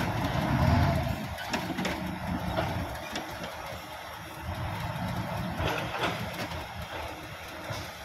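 Diesel engine of a three-axle dump truck running as the truck pulls slowly through mud. It is loudest about a second in and swells again midway, with a few short knocks.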